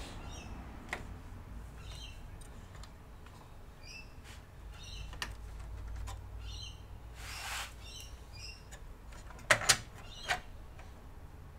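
Sharp clicks and a brief rustle from a hand handling cables and a fan inside an open PC case, with the two loudest clicks near the end, over a low steady hum. Short high chirps repeat every second or two in the background.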